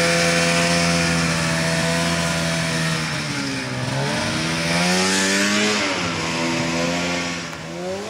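Arctic Cat snowmobile engine running, steady for the first few seconds, then its pitch drops and climbs again twice as the throttle is eased off and opened.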